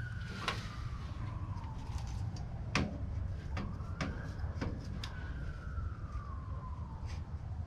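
A siren wailing, its pitch rising quickly and then falling slowly, about once every four seconds. Several sharp clicks and knocks sound over a steady low rumble.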